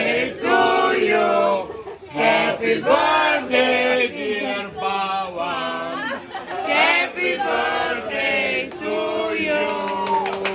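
Music with a choir of singing voices in short chant-like phrases over a steady held low note.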